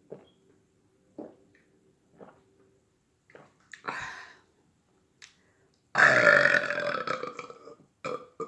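A long, loud burp starting suddenly about six seconds in and lasting about a second and a half, after a few faint short sounds.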